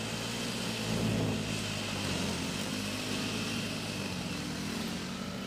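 Side-by-side UTV engine running steadily under way on a dirt trail, with a steady hiss of wind and tyre noise.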